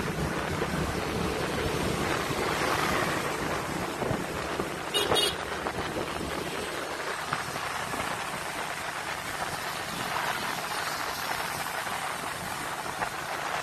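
Wind rushing over the microphone with the engine and road noise of a motorcycle riding at speed, heaviest in the low end for the first few seconds. About five seconds in, a brief double beep cuts through.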